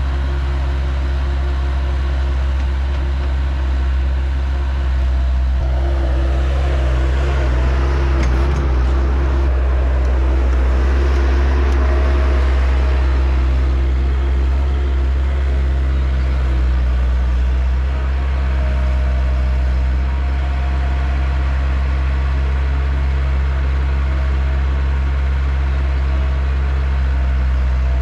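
A motor vehicle's engine runs steadily with a constant low drone. A rushing noise swells about six seconds in and fades again near the middle.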